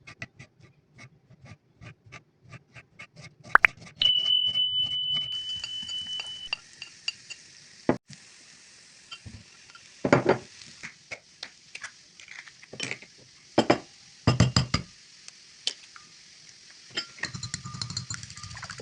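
A quick run of light clicks, then about four seconds in a steady sizzle of food frying in hot oil in a pan starts and keeps going, with a high ringing tone for the first couple of seconds of it. A utensil clinks and scrapes against the pan several times over the sizzle.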